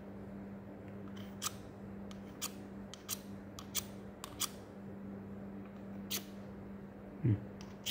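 Short, irregular scrapes of a striker against a fire-starter rod, about nine quick strokes, as someone tries to strike sparks.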